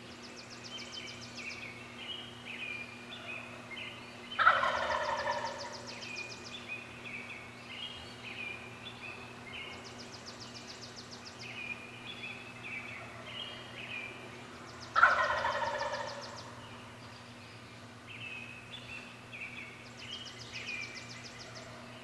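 Wild turkey tom gobbling twice, about ten seconds apart. Each gobble is a loud rattling call of about a second and a half that falls in pitch. Songbirds chirp throughout, and a high trill repeats every few seconds.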